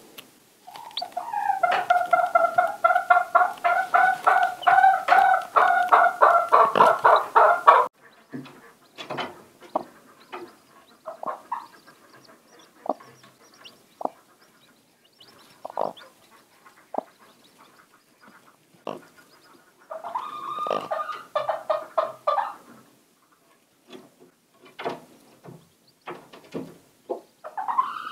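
Mother hen giving a long, rapidly pulsing cluck for about six seconds, then scattered light taps and scratches in the wood shavings, and a second, shorter run of clucking about twenty seconds in.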